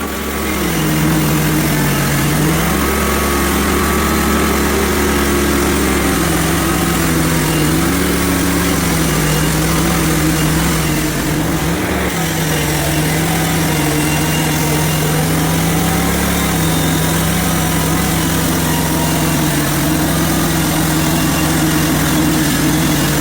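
Band sawmill engine running steadily, its pitch dipping slightly and recovering every few seconds, as under the changing load of sawing a log.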